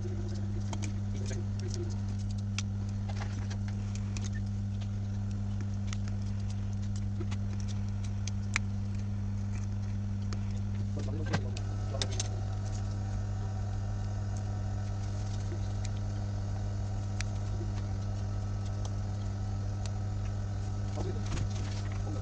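A steady electrical machine hum with light scattered clicks and taps. About halfway through, a second, higher-pitched machine tone joins and runs until it cuts off near the end.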